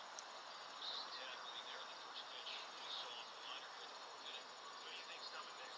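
Crickets chirping in a faint, steady high-pitched chorus, with shorter chirps coming and going beneath it.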